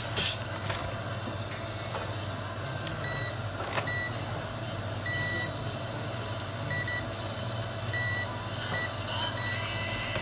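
Short electronic beeps, some brief and some held, come at irregular intervals from about three seconds in, over a steady low hum from bench equipment. Near the start there are a couple of sharp knocks, the loudest sounds.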